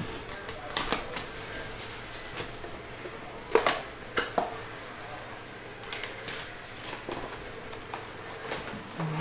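A cardboard trading-card box and its wrapping being handled and opened by hand: scattered taps, clicks and rustles, with a couple of sharper snaps about three and a half and four seconds in.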